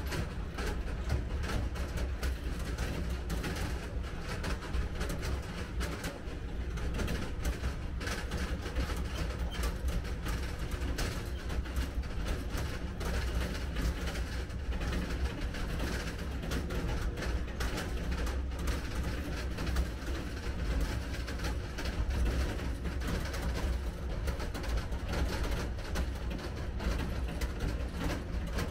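Tractor engine running steadily while it tows a metal-framed passenger trailer over a gravel track, with a low rumble and constant rattling and clattering from the trailer.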